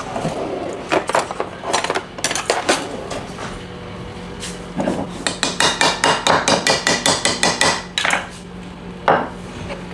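A knife tapping and prying at the lid of a goose fat container to open it. Scattered knocks and scrapes come first; about halfway in, a fast run of taps, several a second, lasts about three seconds, and a single knock follows near the end.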